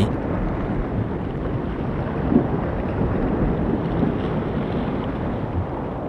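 Steady underwater ambience: an even rushing wash of water noise with no distinct events.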